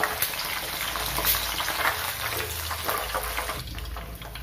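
Hot cooking oil sizzling and crackling in a frying pan as fried chicken pieces are lifted out, the sizzle thinning out near the end.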